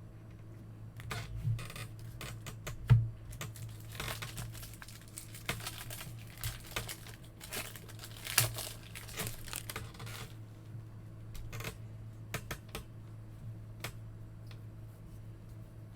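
Trading-card packs and cards being handled: wrappers crinkling and tearing, with a scatter of small clicks and taps, busiest from about four to ten seconds in. A steady low electrical hum runs underneath.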